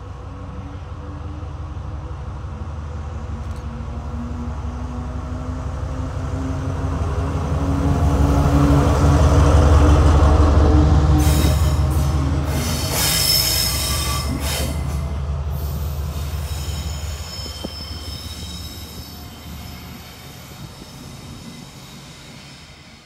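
Colas Rail Class 70 diesel locomotive 70803 passing at close range, its GE PowerHaul V16 engine rumble building as it approaches and loudest about ten seconds in. A high-pitched squeal sounds as it goes by, and the engine fades as it moves away.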